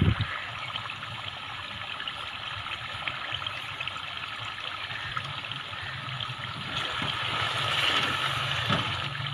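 Goat-head curry sizzling and bubbling in ghee in an aluminium pot, a steady crackling hiss: the water has cooked off and the masala is frying (bhuna stage). It grows a little louder near the end as a spoon stirs through it.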